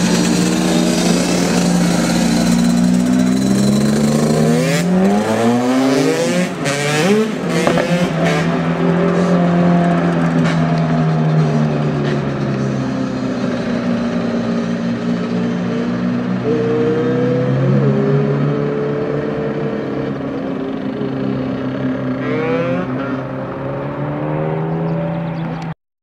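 Ferrari F430's 4.3-litre V8 and several dirt-bike engines running and accelerating away together, revs rising and falling through gear changes, with a few sharp pops a few seconds in. The motorbikes' engines are louder than the Ferrari's.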